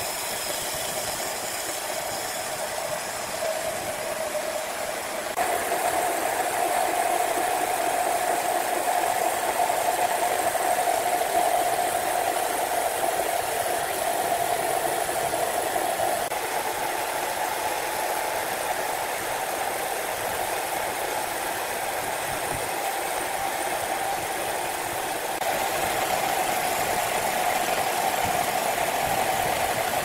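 Horizontal band sawmill running, its band blade cutting lengthwise through a large mahogany log: a steady whine over a hiss. The loudness steps up or down a few times.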